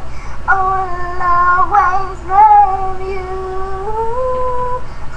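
A high-pitched voice singing long held notes, each holding a steady pitch with small slides between them, with a brief break about two seconds in and a step up in pitch near the end.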